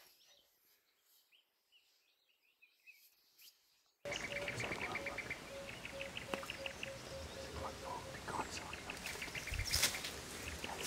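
Bush ambience with birds calling while an African elephant walks past almost without a sound. Faint chirps come first, then, after a sudden jump in level, bursts of rapid high chirps and a low piping note repeated about three times a second. A brief loud crackle comes near the end.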